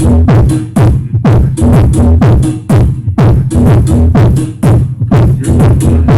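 Mega funk track played loud through a car's aftermarket sound system: heavy bass under a fast run of sharp electronic hits, each dropping in pitch.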